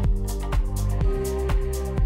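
Background music with a steady beat, about two beats a second, over sustained bass and held notes.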